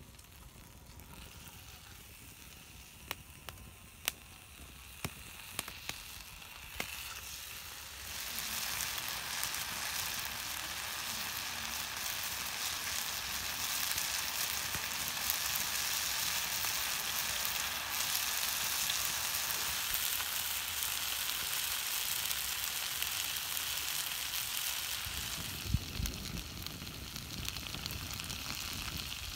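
Food frying in hot oil in a pan. A few sharp crackles come over a faint sizzle, then about eight seconds in the sizzle suddenly turns loud and stays steady, with a couple of low knocks near the end.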